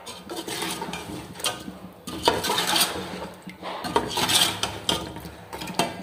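Long steel ladle stirring a thick meat-and-potato curry in a large metal pot, scraping and clinking against the pot's sides and bottom in a series of irregular strokes.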